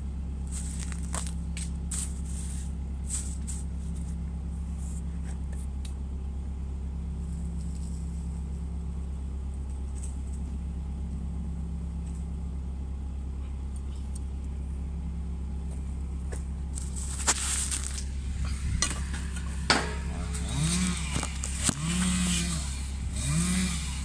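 Bobcat skid steer loader's diesel engine idling steadily; in the last few seconds it revs up and back down about four times, with a few sharp knocks just before.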